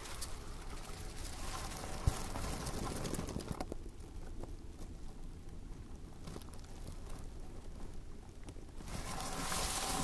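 Footsteps through forest undergrowth with spruce branches and dry grass rustling against the walker, stopping about three and a half seconds in for a quieter stretch, then rustling again near the end.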